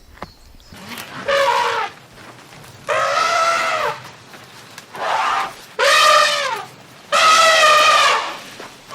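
An animal calling repeatedly: about five loud, drawn-out pitched calls, each around a second long, with pauses between them.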